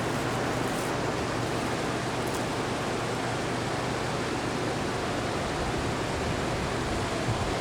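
Steady, even rushing noise with a faint low hum underneath and a few faint clicks.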